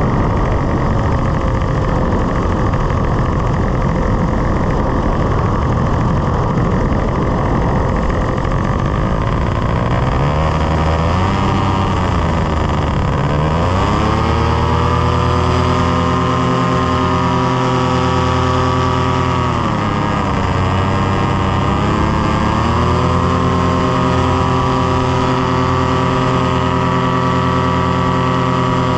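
Paramotor engine and propeller running in flight under heavy wind noise. About ten seconds in, the engine note comes through clearly, and its pitch dips and climbs back twice.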